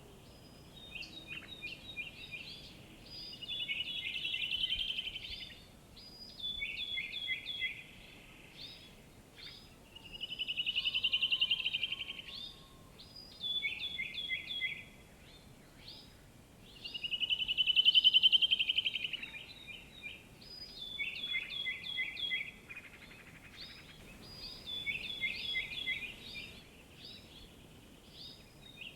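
Songbirds singing in repeated phrases of short, quick falling notes, broken three times by a loud, rapid trill that swells and fades over a couple of seconds, over a faint steady outdoor hiss.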